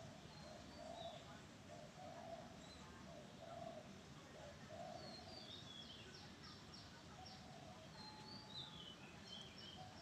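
Faint dove cooing: short low notes repeated about once a second, with a small bird's high chirps and whistled glides coming in during the second half.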